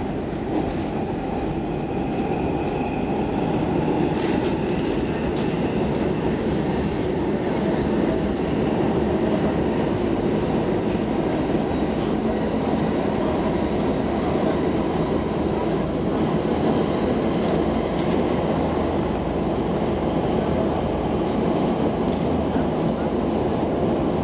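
Stockholm metro C14 train running at speed, heard from inside the car: a steady rumble of wheels on rail, growing slightly louder over the first few seconds and then holding even, with a faint high whine in the first few seconds.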